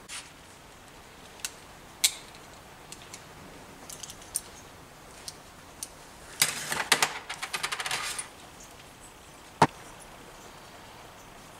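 Small metal parts clinking and rattling on a workbench. Scattered light clicks, a dense clatter lasting about two seconds in the middle, and one sharp click near the end.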